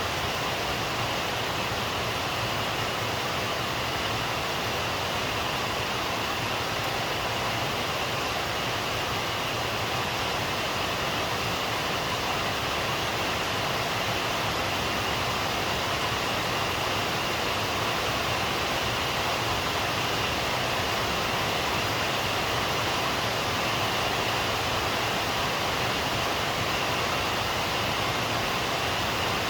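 Steady rain falling, an even unbroken hiss without thunder or distinct drips.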